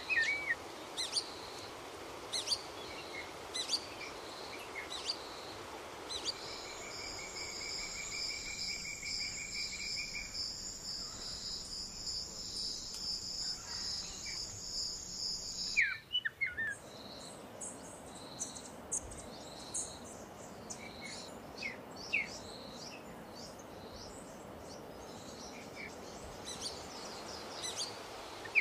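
Summer meadow ambience: birds chirping in short calls throughout over a soft steady background hiss. From about six seconds in, a high, rapidly pulsing insect trill joins, then cuts off suddenly about halfway through.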